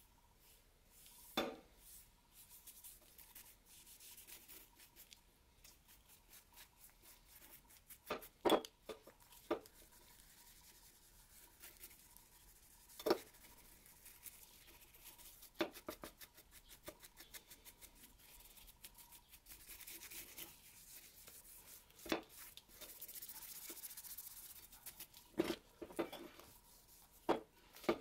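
Bristle brush scrubbing liquid onto a steel cleaver blade: a soft, scratchy brushing sound, broken by about seven sharp knocks of brush or metal against the blade and table.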